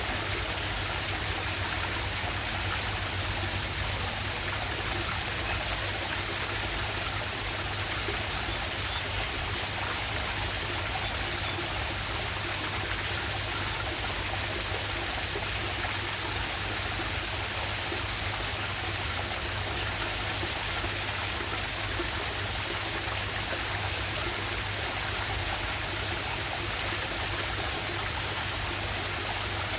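Waterfall on a stream, water pouring and running with a steady, even hiss that does not change.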